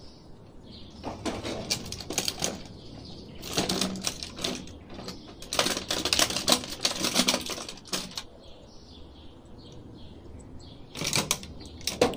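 Stiff clear plastic toy packaging crinkling and crackling in about four bursts as an action figure is pulled free of its blister tray and handled.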